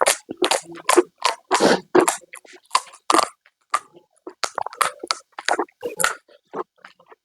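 Close-miked eating of crunchy street snacks (panipuri and chatpate): crisp bites and wet chewing, with crunches coming thick and fast for the first three seconds, then more spaced out.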